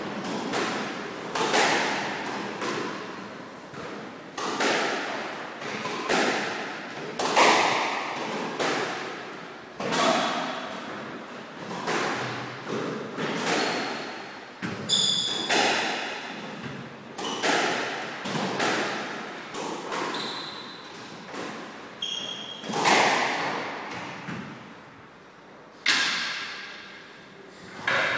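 Squash rally: the ball is struck by rackets and rebounds off the court walls and floor, a sharp echoing crack about once a second. Sports shoes squeak briefly on the wooden floor a few times.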